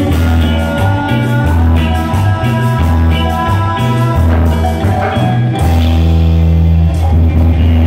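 Live band music played loud through PA speakers: saxophones and keyboards over electric bass, guitar, congas, drum kit and a scraped metal güiro. About two-thirds of the way in the upper parts thin out and long, steady bass notes carry on.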